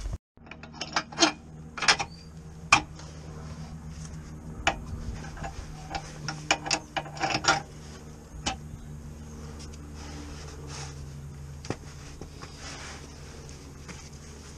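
Irregular sharp metallic clicks and clinks of hand tools working on the car's underside, clustered in the first half, over a steady low hum.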